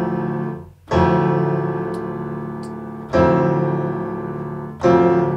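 Piano chords played on a software instrument from a keyboard controller: three chords struck about two seconds apart, each held and slowly fading.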